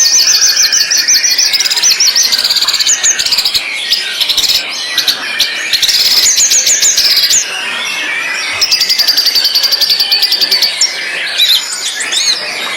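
White-rumped shama (murai batu) singing: three long runs of fast, high repeated notes, with shorter varied whistled phrases between them.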